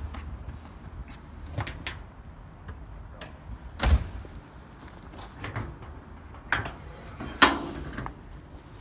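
The front boot lid of a 1968 Fiat 595 being handled and opened: a series of separate metal clunks and knocks from the lid and its latch, the loudest about four seconds in and again near the end, the last ringing briefly.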